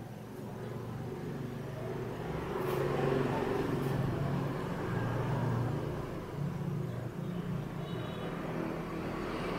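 Low rumble of a passing motor vehicle, growing louder over the first three seconds and then holding steady.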